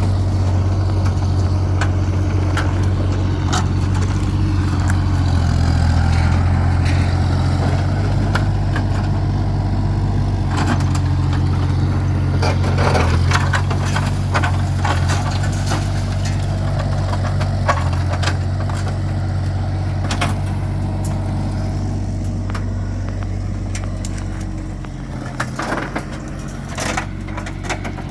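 A heavy machine's engine runs steadily, with scattered clanks and knocks of metal. Late on the engine sound drops, and a few sharp knocks follow.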